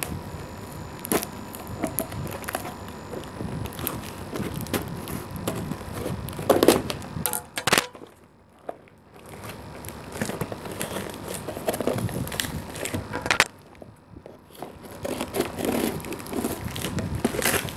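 Scissors cutting and tearing at packing tape on a small cardboard box, with rustling and crinkling as the box is handled; a few louder rips and snaps stand out among the small clicks, with two short quiet pauses.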